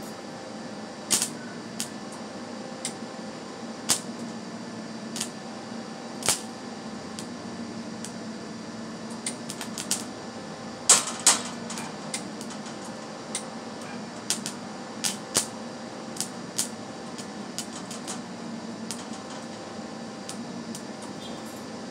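Irregular sharp metal clicks and taps from hands working at a wire-feed welding gun whose cheap contact tip is clogged with weld metal, with a denser run of clicks around the middle. A steady hum runs underneath.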